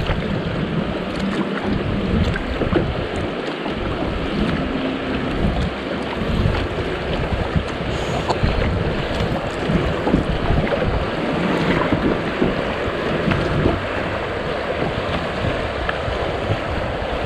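Steady rush of shallow creek water running over riffles around a kayak, with wind buffeting the camera microphone.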